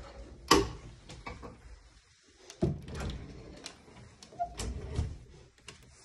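A string of knocks and clacks from a white bifold closet door being handled and pulled open, the loudest about half a second in.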